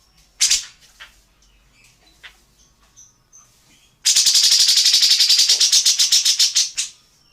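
Wild bird calls: a sharp call about half a second in and a few faint chirps, then a loud, rapid rattling call of about ten notes a second lasting nearly three seconds.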